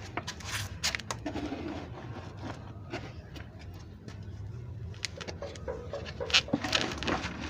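Dove cooing softly, over a steady low hum and a scatter of light clicks and taps.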